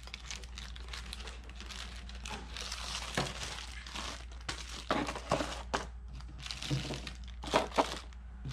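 Clear plastic zip bags crinkling and rustling as a speaker crossover circuit board is slid back into its bag and the bagged parts are packed into a cardboard box, with irregular sharper crackles from about halfway through.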